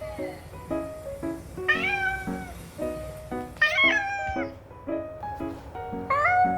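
A snow Bengal cat meowing three times, each call rising then falling, the last starting near the end: meows demanding attention. Background music with a steady beat plays underneath.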